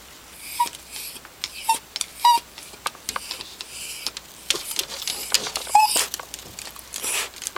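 Dog whimpering in short, high squeaks, four times, amid sharp clicks and scratching: the whining of a dog upset at its owner leaving.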